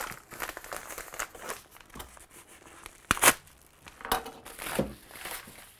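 Crumpled yellow paper bag crinkling and rustling as it is handled and opened, with a louder, sharper crackle about three seconds in.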